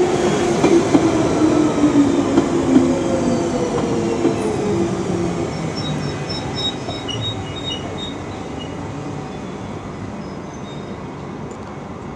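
London Underground 1992 Stock Central Line train braking into the platform: its motor whine falls in pitch as it slows and the running noise dies away as it comes to a stand. A few short high squeals come about halfway through.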